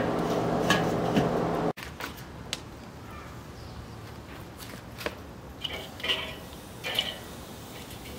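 Light metal clinks and knocks from handling a charcoal kettle grill, its lid and grate, over a steady hum. The hum cuts off abruptly about two seconds in, leaving a quiet background with a few more scattered clicks and brief high squeaks.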